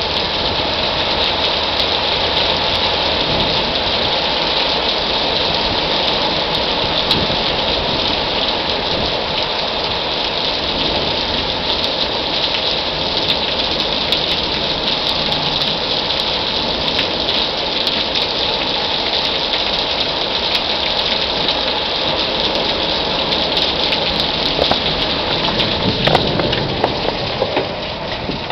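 Heavy rain falling steadily: a dense, even hiss with scattered sharper drop hits, growing a little quieter near the end.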